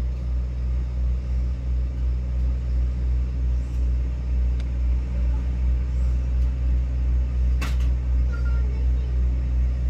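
Diesel engine of an asphalt paver (asphalt finisher) running steadily with a deep, even hum. A single sharp knock sounds near the end.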